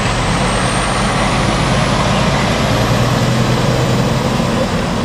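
Diesel fire engine (pumper) driving slowly past close by, its engine running steadily, loudest as it passes in the middle.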